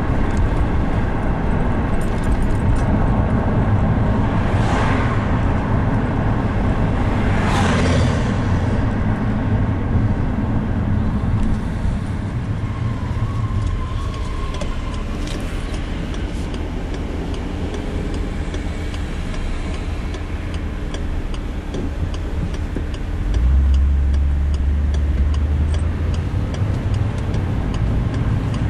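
Car driving through town, heard from inside: a steady mix of engine and tyre noise. Two brief swishes come in the first ten seconds, and a louder, deeper rumble lasts a couple of seconds about two-thirds of the way through.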